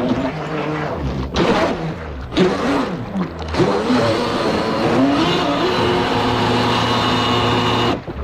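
Motor of a Blackjack 24 RC boat running on the water, its pitch rising and falling with the throttle. There are a few abrupt breaks in the sound.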